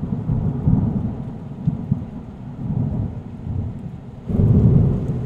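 Thunderstorm sound effect: low, rolling thunder over rain, swelling into a louder thunder roll about four seconds in.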